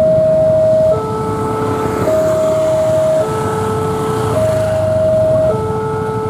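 Railway level-crossing warning alarm sounding: an electronic two-tone signal alternating between a higher and a lower note, each held about a second, warning that a train is coming. A low rumble runs underneath.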